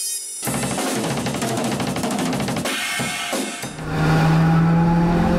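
Loud drum-kit music of a short logo sting. About four seconds in, a sustained low drone with a slowly climbing pitch comes in.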